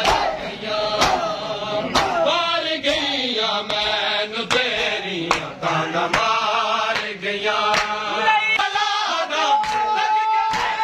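A noha chanted by a group of male voices in unison, a Shia lament, with sharp hand slaps on bare chests (matam) about once a second keeping the beat. Near the end a voice holds one long note.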